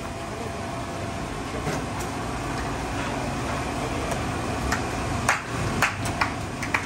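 Busy street ambience: a steady hum of traffic and bustle, with several sharp knocks and clinks in the last two seconds.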